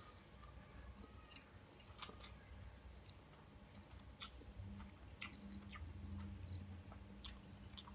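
Faint chewing of a mouthful of thick fried instant noodles, with a few scattered sharp mouth clicks, the strongest about two seconds in.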